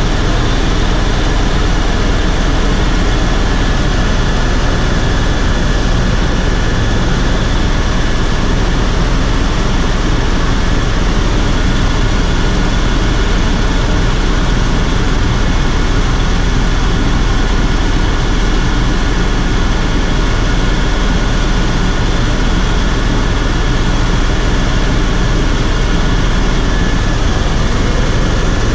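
Helicopter turbine engine and rotor in flight, heard from inside the cabin: a loud, steady drone with a strong low rumble and a thin, steady high whine over it.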